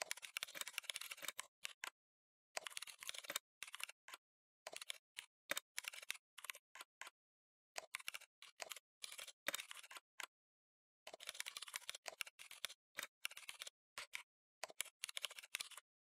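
Computer keyboard typing: quick runs of keystroke clicks broken by short pauses.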